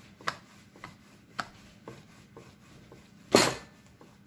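Wooden rolling pin rolling out chapati dough on a wooden board: light knocks about twice a second, then one louder knock a little past three seconds in.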